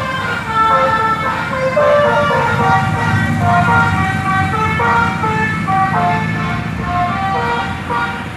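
A 'telolet basuri' musical air horn playing a quick tune of short notes stepping up and down in pitch, over a vehicle's running engine.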